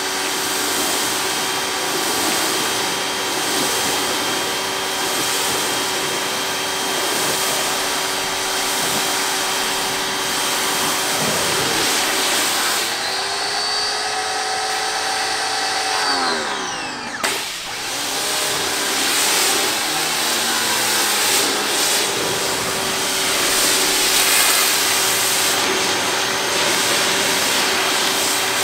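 Ryobi electric pressure washer running while its spray rinses a trailer wall: a steady motor-and-pump hum over the hiss of water spray. About two-thirds of the way in the pitch falls away and the level dips briefly, then the sound picks up again.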